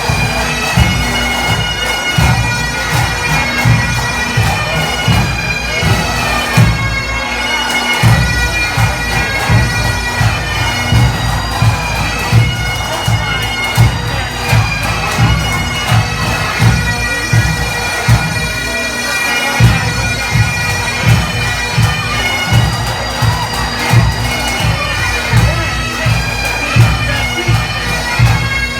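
Bagpipes playing a tune over their steady drones, with regular low thumps underneath.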